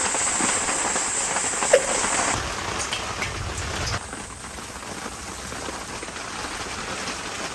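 Steady rain pattering on a tent, a dense even hiss that changes abruptly about two and a half seconds in and turns quieter about four seconds in.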